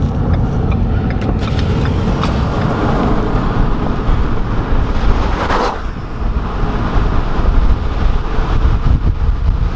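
Car driving at speed, its road noise mixed with heavy wind buffeting the microphone, steady and loud, with a few sharp ticks.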